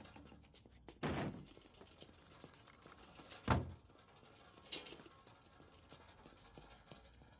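Three short thuds over a quiet background, about one, three and a half and nearly five seconds in; the middle one is the loudest and deepest.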